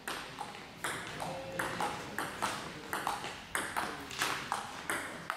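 Table tennis rally: the ball bouncing on the table and struck back and forth by the players' bats, a quick, steady run of sharp clicks, about three to four a second.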